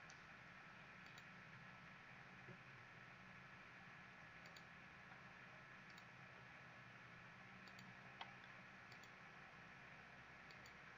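Near silence with faint computer mouse clicks, a handful of short clicks scattered every second or two over a steady low background hiss.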